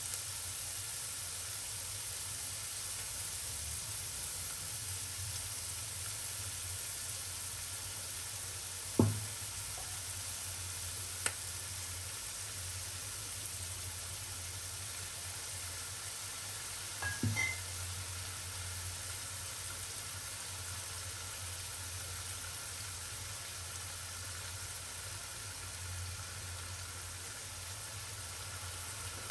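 Minced pork and garlic frying in a steel wok: a steady sizzle over a low hum. A single sharp knock comes about nine seconds in, and a few light clatters about seventeen seconds in.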